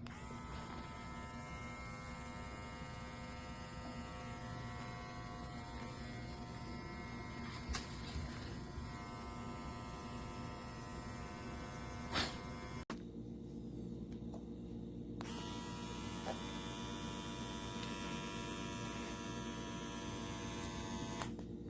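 Small electric motor of a cordless pet grooming trimmer running with a steady hum, spinning up at the start. A couple of clicks come in the first half, the sound cuts out briefly about halfway, then the motor hums on again with a slightly different tone.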